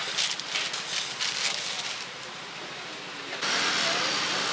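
Paper crackling and rustling as a sandwich is slid into a paper sleeve and wrapped, in quick irregular crinkles for about two seconds. About three and a half seconds in, a steady wash of street noise comes in.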